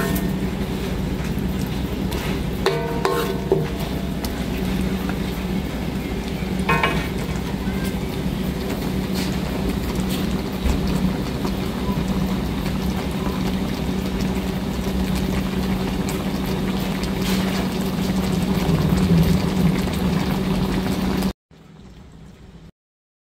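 Coconut-milk gravy simmering in a wok, a steady bubbling sizzle over a low hum, with a spatula stirring in the pan now and then. The sound cuts off abruptly near the end.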